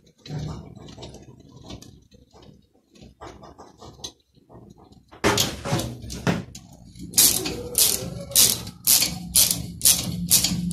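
A rusty steel screw being driven into a freshly tapped thread in a steel plate: faint scraping and clicking as it is turned in by hand, then, from about five seconds in, a run of loud, sharp grating clicks, about two a second, as it is tightened with a hex key.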